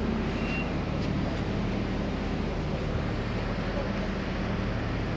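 Docked high-speed Condor ferry's machinery running, a steady low hum.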